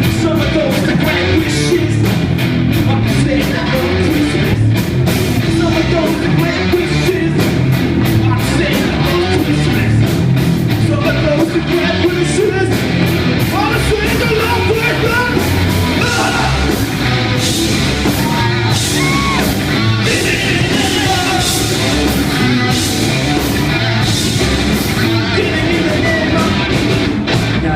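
Live rock band playing loud, with electric guitars, drums and a singing vocal.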